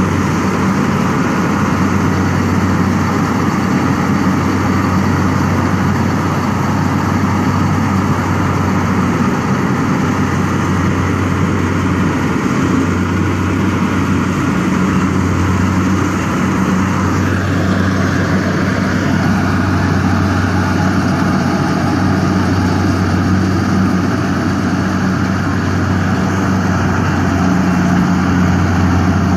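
Large engine running steadily at a constant speed, a loud low hum, with a slight change in its tone a little past halfway.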